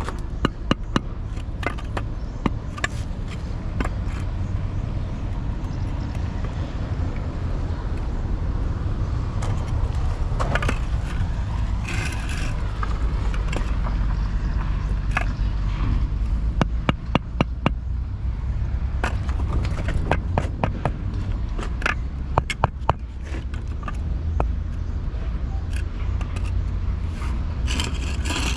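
Construction-site work: a steady low rumble with scattered metallic clinks, knocks and scrapes of tools and materials, the knocks coming thicker in the second half.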